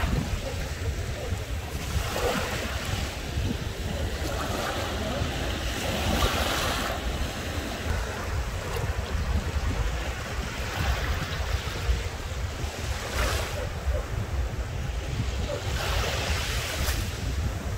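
Small sea waves washing onto the shore, each wash rising and falling as a brief hiss, several times over. Wind buffets the microphone as a steady low rumble underneath.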